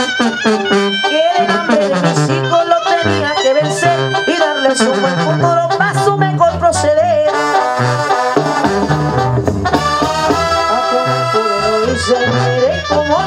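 Brass band music: horns and saxophones carrying an instrumental tune over a moving bass line.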